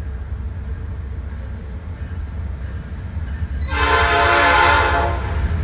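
Approaching Norfolk Southern freight train's locomotive air horn sounding one loud blast of about a second and a half, several tones together, starting a little over halfway through, over a steady low rumble.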